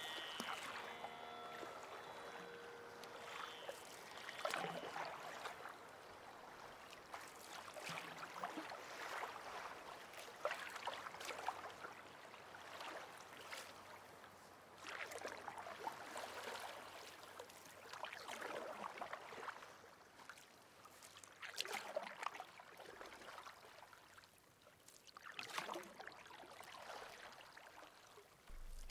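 Water splashing and gurgling in irregular swells every second or two.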